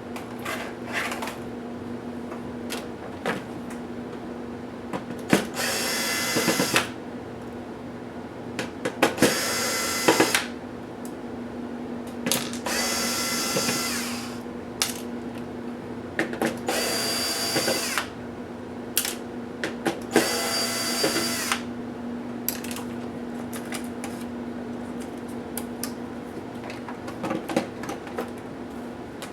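Small electric screwdriver whirring in five short bursts of about a second each, a few seconds apart, backing out laptop case screws, with small clicks of handling in between over a steady low hum.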